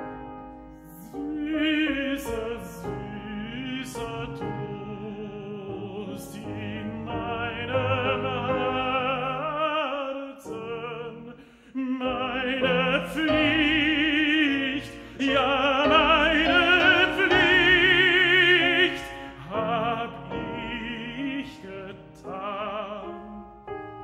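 Operatic tenor singing in German with strong vibrato, accompanied by a grand piano. The voice drops out briefly a little before the middle, then swells to its loudest on long held notes in the second half before easing into a softer phrase near the end.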